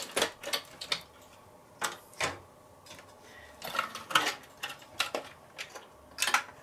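Irregular clicks and light clatter of plastic cable plugs being pulled from a PC motherboard's sockets and the board being handled inside its metal case.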